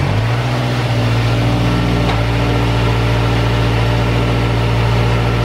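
Mazdaspeed 3's turbocharged 2.3-litre four-cylinder idling steadily right after starting. It is running smoothly on its first start after a full EGR delete.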